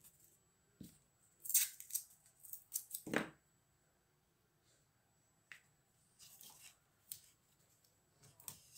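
Masking tape and sheets of paper handled and pressed down by hand: a series of short rustles and rasps, the strongest about three seconds in, with a quiet pause in the middle.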